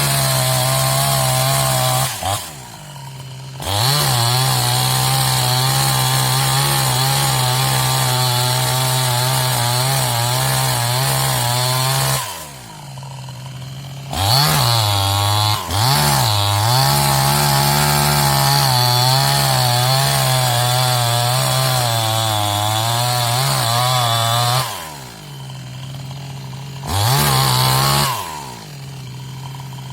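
New West 628 two-stroke chainsaw running at full throttle while cutting, with its engine note wavering under load. Three times the throttle is released and the saw drops to a quieter idle for a second or two before being revved back up, and it falls back to idle near the end.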